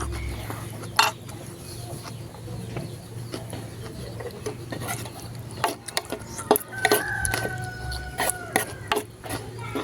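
Cutlery clicking against a bowl as noodles are eaten, in scattered sharp clicks, with a steady low hum. A rooster crows once in the background, a long held call, about seven seconds in.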